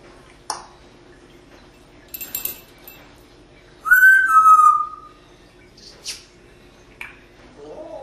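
African grey parrot making a string of short calls: a click, a scratchy burst, then a loud whistle about four seconds in that drops slightly in pitch, followed by brief chirps.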